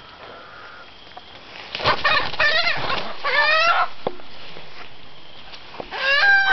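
A rooster giving loud, harsh, wavering calls in a burst of about two seconds, then one more short call near the end.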